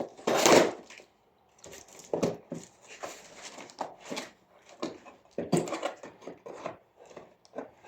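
Packaging being handled by hand: irregular rustles, scrapes and knocks, the loudest a long scraping rip about half a second in.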